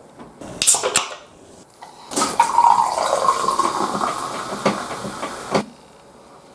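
A can of carbonated chu-hi (Kirin Hyoketsu) is cracked open with a short hiss, then poured fizzing into a glass for about three and a half seconds, stopping abruptly.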